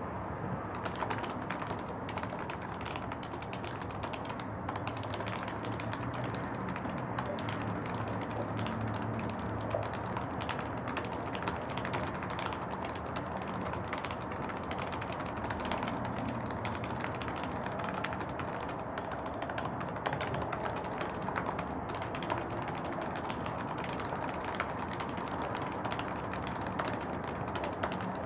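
Steady typing on a Topre-style electrostatic capacitive keyboard with 45 g rubber domes, lubed sliders and a top-mounted plate: a quick, irregular run of soft keystrokes. The plate is loose, which the builder says adds some rattling.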